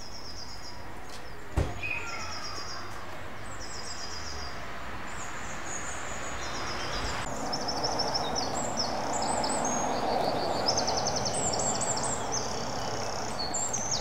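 Several songbirds singing rapid, high trilling phrases over steady outdoor background noise. There is one sharp knock about one and a half seconds in, and the background noise grows louder from about halfway through.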